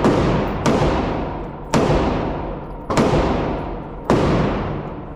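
Four gunshots fired at a steady pace, about one every 1.1 to 1.2 seconds. Each sharp crack trails off in a long echoing decay in the enclosed indoor range.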